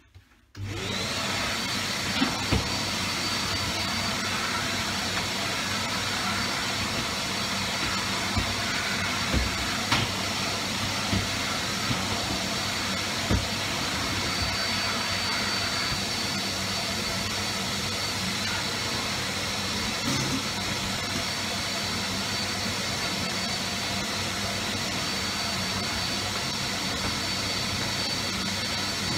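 Cylinder vacuum cleaner switched on about half a second in, its motor spinning up to a steady run with a high whine. A few short knocks come through over the first half.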